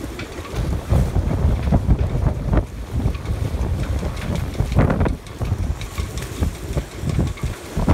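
Storm-force wind gusting hard across the microphone, a heavy uneven rumbling buffet that surges about a second in and again around the middle.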